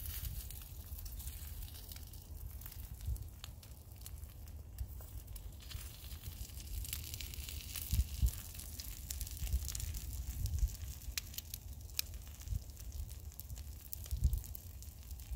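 Egg frying in a small pan over a wood-burning camp stove: a steady sizzle with many small crackles and pops, and a pair of louder knocks about eight seconds in.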